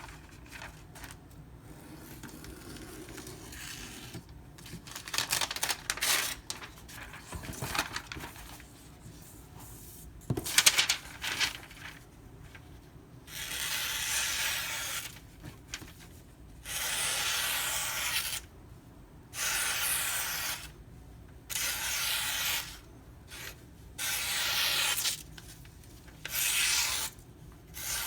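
A knife blade making repeated rubbing strokes. There are irregular scrapes and clicks at first, then from about halfway even hissing strokes, each about a second long, come roughly every two seconds.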